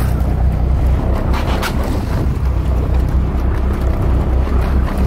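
Wind buffeting the microphone on an offshore fishing boat, over the low steady drone of the boat's engine.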